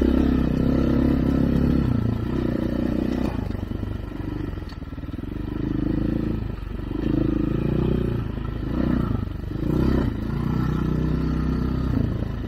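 Dirt bike engine running, revving up and easing off several times in quick succession as the throttle is worked.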